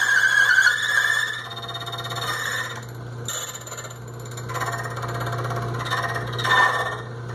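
ILCO Duplimatic 2A key cutting machine cutting a key blank: the electric motor hums steadily while the cutter squeals against the blank. The squeal is shrill and strongest in the first second or so, then comes and goes in uneven surges as the carriage draws the key across.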